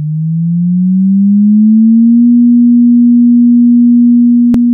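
A pure electronic sine tone rising in pitch over about two seconds, then holding steady, with a single sharp click near the end.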